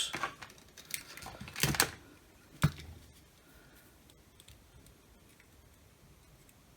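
A few light clicks and knocks of tools and parts being handled on a workbench during soldering, the sharpest a single tap about three seconds in, then only quiet room tone.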